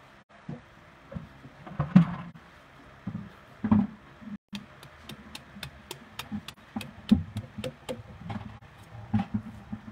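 Irregular dull thuds and knocks, then a run of quick, even knife taps on a cutting board, about four a second, from around four and a half seconds in.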